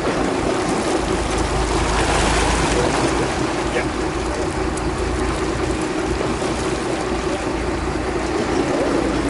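A boat's engine running steadily, with wind and water noise.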